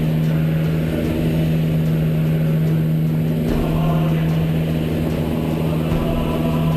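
Canadair CL-415 water bomber's twin Pratt & Whitney PW123AF turboprops and propellers, heard from inside the cockpit as a steady, even drone with a low hum.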